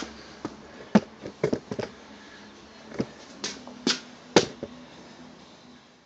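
A few scattered sharp knocks and clicks, about seven over four seconds, over a faint steady hum.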